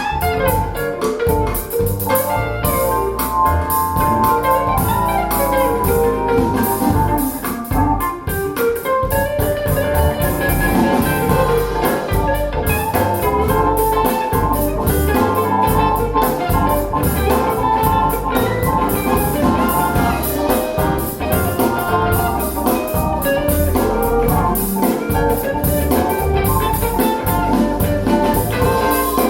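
Instrumental jazz-style music with drums and a bright melodic line, played back through a pair of Bowers & Wilkins 607 bookshelf speakers.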